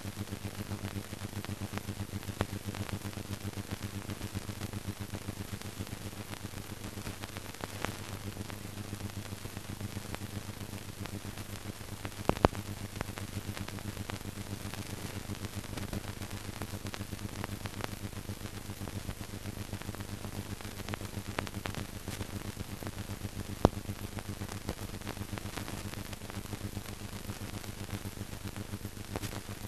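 Steady hum and hiss of a worn 1950s newsreel soundtrack, with scattered clicks and pops, two of them sharper than the rest. No other sound stands out.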